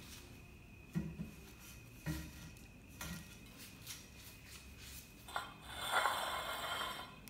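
A cat playing with a rusty metal pipe on a wooden tabletop: a few light knocks and clinks about a second apart, then a longer crinkly rustle near the end as it rolls and paws on a thin foam packing sheet.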